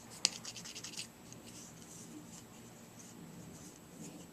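A finger scraped across the ridged layer lines of a 3D-printed ABS part, giving a faint scratchy rasp. A sharp click comes about a quarter second in, followed by a quick run of small ticks in the first second, then fainter scraping.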